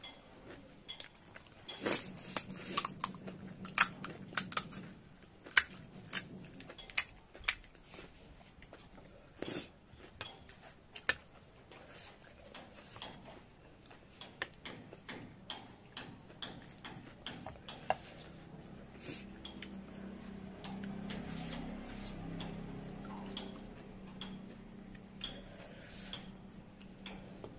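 Eating pani puri: sharp cracks and clicks as the crisp puri shells are poked open by hand and a spoon clinks against the plate and bowl, with chewing. The clicks come thick and loud in the first half and thin out later.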